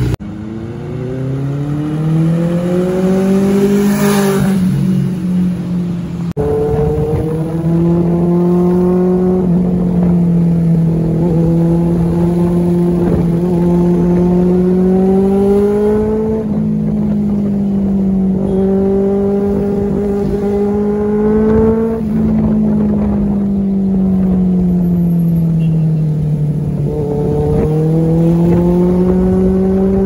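Benelli TNT 600i inline-four with an aftermarket IXIL exhaust: revved up and back down, then, after a break about six seconds in, heard under way, its note climbing over several seconds and dropping back again and again as it pulls and rolls off.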